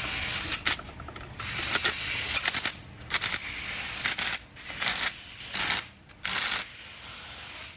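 Short bursts of ratcheting clicks, about seven or eight in quick succession, from a hand ratchet run down on the case bolts of a Toyota 7.5-inch clamshell front differential.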